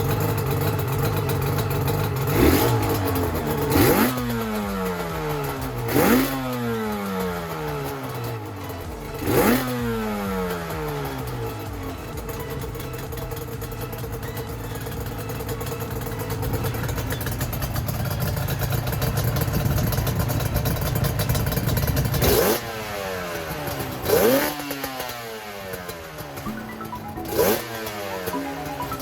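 Yamaha R1-Z's two-stroke parallel-twin engine being blipped through an aftermarket chamber silencer: four quick revs, each falling away at once, then a steady idle of about twelve seconds, then three more revs near the end.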